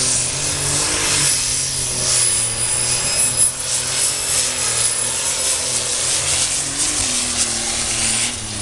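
Turbocharged diesel engine of a Super Stock pulling tractor running flat out as it drags the weight-transfer sled down the track, a loud steady run with a thin high whistle over it.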